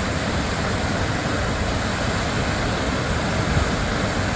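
Lower Falls waterfall on Gold Creek: a steady, loud rush of falling water with a deep, rumbling low end.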